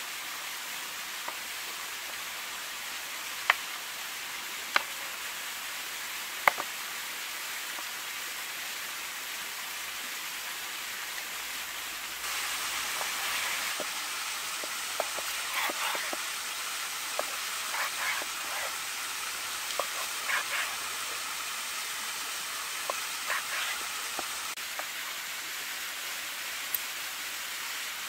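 A large knife cutting raw beef into chunks on a cutting board. A few sharp knocks of the blade on the board come in the first seven seconds, then a run of knocks and short slicing scrapes in the second half. A small cascading waterfall rushes steadily underneath.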